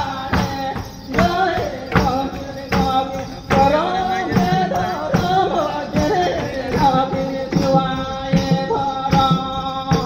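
Santhal folk music: voices singing a melody over hand drums beating a steady rhythm, with a long held note about eight seconds in.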